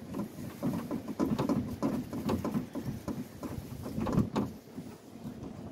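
Irregular small clicks, taps and rustles of a nut being spun by hand onto a power window regulator's mounting stud inside a car door, dying down after about four and a half seconds.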